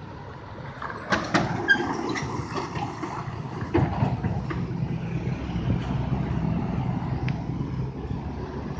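FAW concrete mixer truck passing close by, its diesel engine running with a steady drone that grows louder about a second in. Several sharp clanks and rattles come as it goes by, a cluster around one to two seconds in and another near four seconds.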